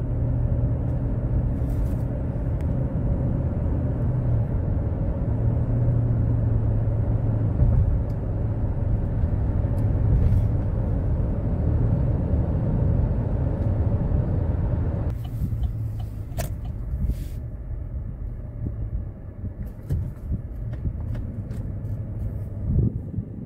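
Chevrolet Tahoe's V8 engine and road noise during a test drive, a steady low rumble that quietens about two-thirds of the way through. The engine is running without the misfire, after a faulty cylinder 8 fuel injector was replaced.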